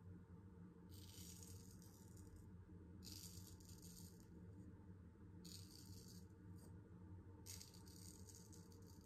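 Damascus steel straight razor scraping through a day's stubble: four short, faint scraping strokes, about one every two seconds.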